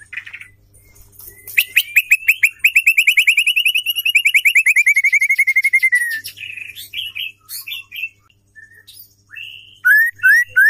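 Female white-rumped shama calling: a rapid trill of repeated notes, about ten a second for some four and a half seconds, sliding slightly lower at its end, then scattered short notes and three loud rising whistled notes near the end.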